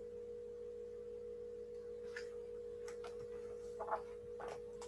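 Quiet room with a steady electrical hum tone, and a few soft rustles and taps as a hardback picture book is handled and put down.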